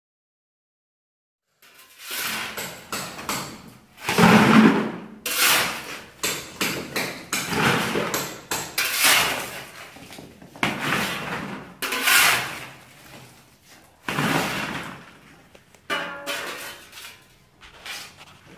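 Repeated hammer blows on a brick and plaster wall being knocked down, starting about a second and a half in and coming roughly once a second at an uneven pace, each blow trailing off briefly.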